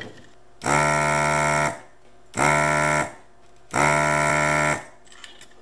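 Desoldering gun's vacuum pump buzzing three times, each for about a second, sucking solder off the leads of a transistor being removed from a circuit board.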